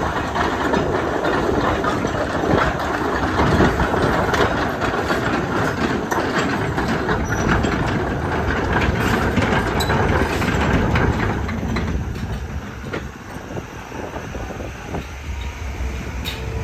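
JCB JS160LC tracked excavator working, its engine running under a heavy metallic clatter. It quietens after about twelve seconds, leaving scattered clanks.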